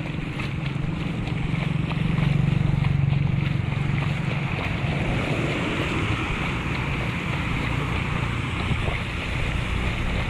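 A vehicle travels through shallow floodwater on a paved road. Its tyres swish and splash through the water over a steady low engine hum, with wind rushing on the microphone.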